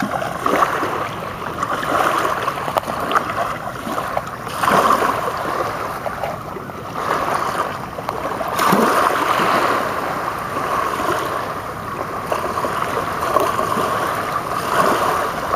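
River water washing and lapping at the shore in the shallows, swelling and easing every few seconds.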